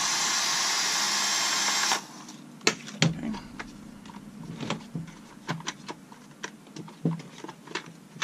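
A loud, steady hiss for about two seconds, cutting off sharply. Then scattered clicks, taps and knocks of hand tools and small metal chainsaw parts being handled.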